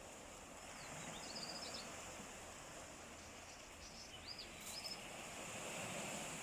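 Sea waves washing on the shore as a steady, fairly faint rush, with two brief bursts of high bird chirps, about a second in and again around four to five seconds in.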